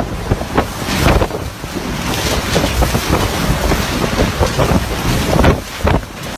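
Strong wind gusting and buffeting the microphone, a rough, rising and falling rush of noise.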